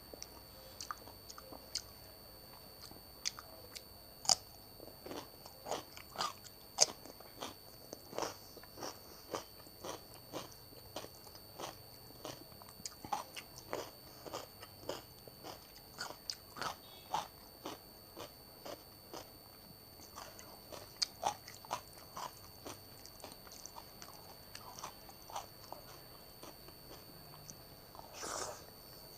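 Close-miked eating: a person chewing, with crisp crunches and wet mouth clicks at irregular moments, roughly one or two a second. A brief, slightly longer rustling sound comes near the end.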